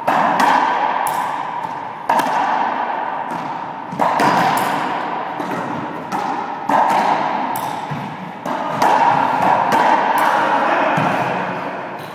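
Racquetball rally: the ball struck by racquets and smacking off the court walls, with sharp hits about every two seconds and smaller clicks between. Each hit rings on in the echo of the enclosed court.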